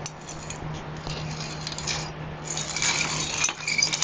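Dry, worn bottom bracket bearings of a 1990 Dyno Comp BMX crunching and grinding as the cranks are turned slowly by hand, very crunchy and in need of new bearings and cleaning. The crunching grows louder for a stretch about three seconds in.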